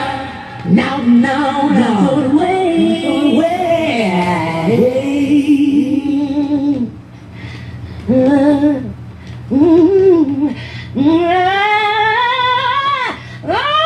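A song playing, with a female lead voice singing long, wavering held notes over the backing music and a brief lull about seven seconds in.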